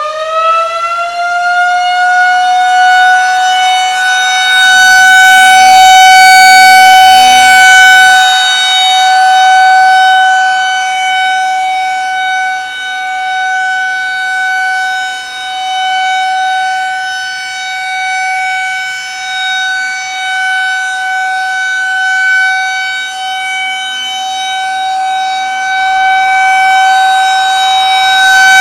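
Federal Signal 2001-130 electromechanical outdoor warning siren finishing its rising spin-up and then holding one steady tone, the steady alert signal of a siren test. Its loudness swells and fades slowly as the rotating horn sweeps around.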